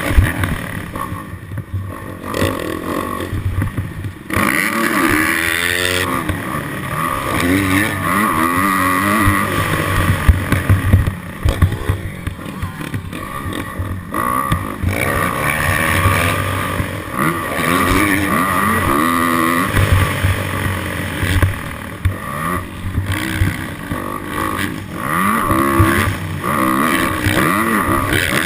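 Dirt bike engine revving up and falling back again and again while being ridden, its pitch rising and dropping with each throttle change.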